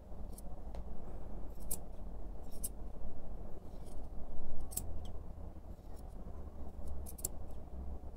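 Grooming scissors snipping through a poodle's curly fur: short, sharp snips at uneven intervals, roughly one a second.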